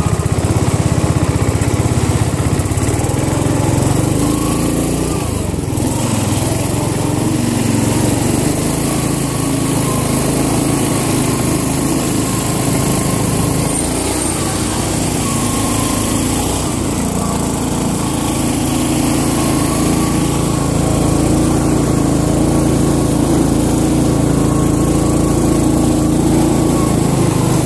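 Small engine running hard and continuously, its pitch wavering up and down as the off-road machine is driven through wet mud.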